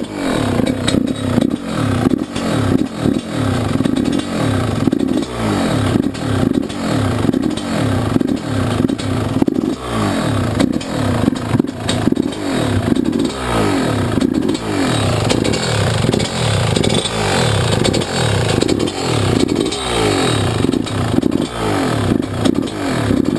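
Freshly rebuilt Yamaha YZ125 two-stroke engine running, its throttle blipped over and over, the pitch jumping up and falling back about once a second.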